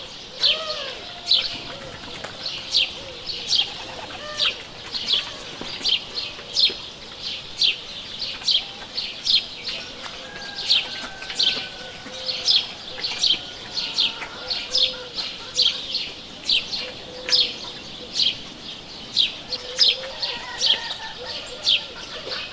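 Small birds chirping: short, sharp high chirps repeating about twice a second, with fainter, drawn-out lower calls underneath.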